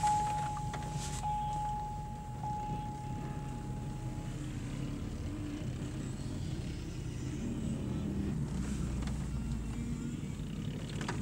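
Low, steady vehicle rumble heard from inside a car, with a thin, steady high tone over the first four seconds or so.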